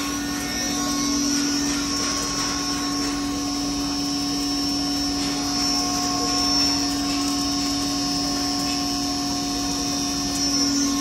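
20 HP double-chamber stoneless flour grinder with its 16-inch blower and cyclone, running steadily under load while grinding grain to flour: an even machine hum with a high whine over it.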